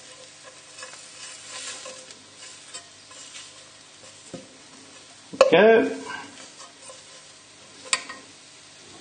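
Fork crushing soft boiled new potatoes against the side of a non-stick saucepan: soft squashing and light scraping of metal on the pan, with steady sizzling underneath. A sharp tap of the fork on the pan comes near the end.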